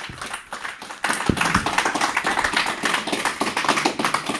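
A room of about forty people applauding, many hands clapping at once, growing fuller and louder about a second in.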